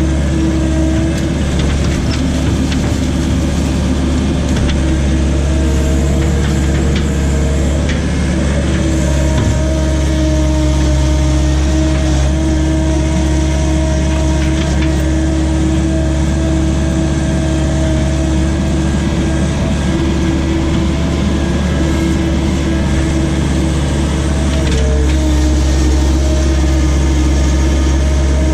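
John Deere skid steer's diesel engine running steadily at a constant speed, heard from the operator's seat, with a few light knocks.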